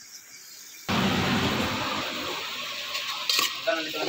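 Pork pieces sizzling as they sauté in a metal pot, the hiss starting suddenly about a second in and easing slowly. Near the end a metal spoon stirs and clinks against the pot.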